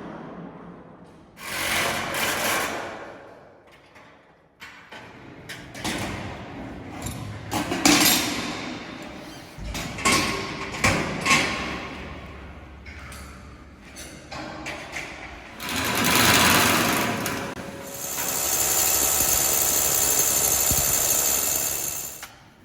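Power tools working on the steel of dismantled mechanical parking lifts: irregular bursts of tool noise and sharp knocks, then a steady high-pitched whine for about four seconds near the end.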